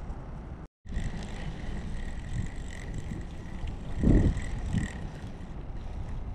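Wind buffeting the microphone in a steady low rumble, with a brief cut-out of the sound just under a second in. There is a louder handling bump about four seconds in as a hand brushes close to the camera.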